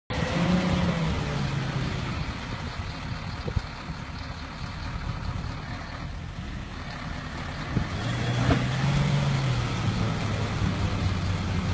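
Vehicle engines working under load during a mud recovery, with a Toyota Land Cruiser towing a stuck truck. The revs fall about a second in, pick up again around eight seconds in, and then hold steady.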